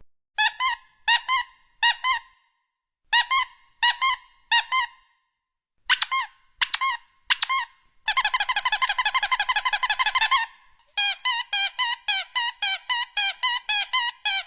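Squeaky dog toy squeezed over and over. It gives short high squeaks in pairs at first, then a fast unbroken run of squeaks for about two seconds, then a steady series of squeaks about three to four a second.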